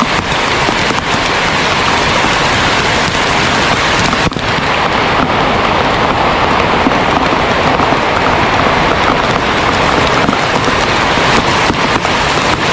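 Heavy rain falling steadily, a dense, even hiss of rain.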